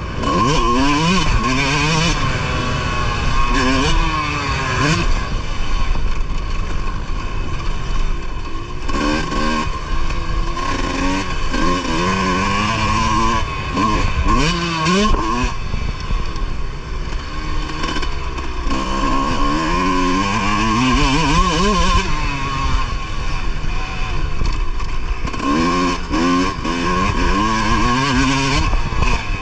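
Kawasaki motocross bike's engine heard from on board, repeatedly rising in pitch as it is revved hard through the gears and dropping away when the throttle is shut, over and over.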